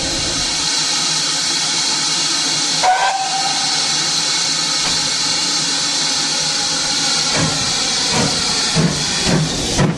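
GWR 5700 Class pannier tank steam locomotive hissing loudly and steadily with escaping steam, with a brief whistle toot about three seconds in. Near the end its exhaust beats start, coming quicker as it moves off.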